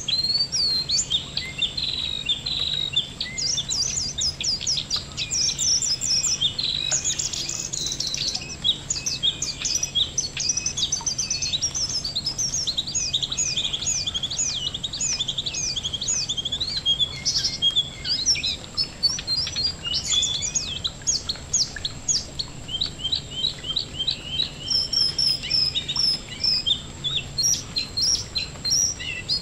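Ashy tailorbird (jongkangan) singing: rapid runs of short, high chirps repeated almost without pause.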